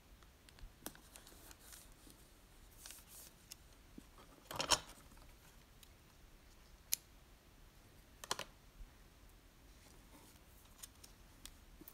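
Hands working paper and washi tape on a journal page: scattered soft rustles and clicks, with a louder crinkling rustle just before five seconds in, a sharp click about two seconds later, and another brief rustle after that.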